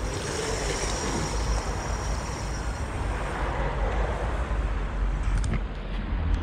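Water running from an outdoor tap into a plastic bike bottle, over steady road traffic noise.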